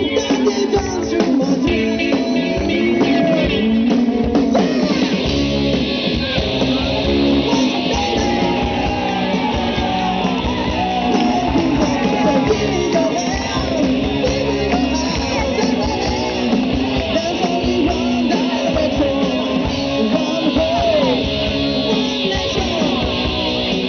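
Live rock band playing: electric guitars, bass guitar and drum kit under a male lead singer, amplified through a PA.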